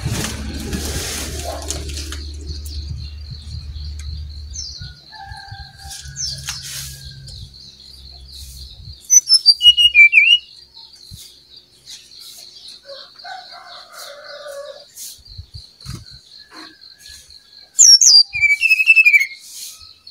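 Brown-chested jungle flycatcher singing in full voice: two loud bursts of rapid, high notes falling in pitch, about nine seconds in and again near the end.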